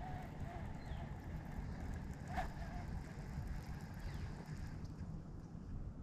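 Wind buffeting the microphone: an uneven low rumble throughout, with a faint wavering tone at the start and a brief click about two and a half seconds in.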